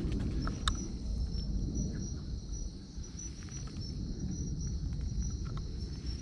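Evening insect chorus: a steady, high-pitched chirring with a regular pulse, over a low rumble and a single click near the start.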